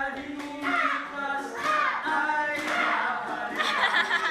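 Several young men's voices singing a song together, with a hand-held percussion instrument struck about once a second and an acoustic guitar being played.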